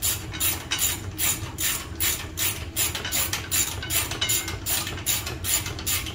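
Hand ratchet wrench being worked back and forth on a bolt, the pawl rasping on each return swing in a steady rhythm of about two strokes a second.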